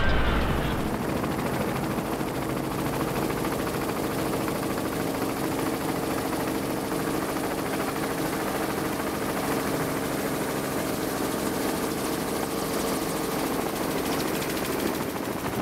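Helicopter in steady flight heard from aboard: an even rush of rotor and engine noise with a steady multi-tone hum. A deeper low rumble dies away in the first second.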